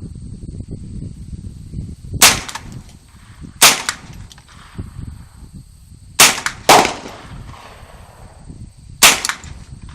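Five single .22 LR gunshots from a Smith & Wesson M&P .22, fired at uneven intervals, two of them close together about halfway through.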